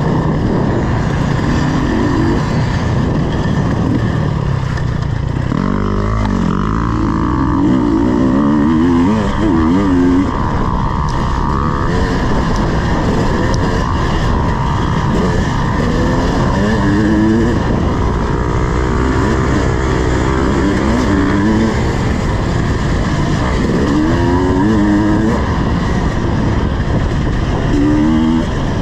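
KTM 250 EXC two-stroke dirt bike engine being ridden hard, its pitch rising and falling over and over with the throttle and gear changes, under steady wind and riding noise.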